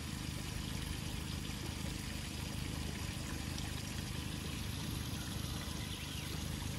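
Steady rushing of river water around the boat and brush pile, with no distinct splashes.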